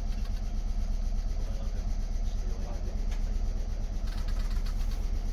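Steady low hum of a Meitetsu 3500 series electric train standing still, heard from the cab.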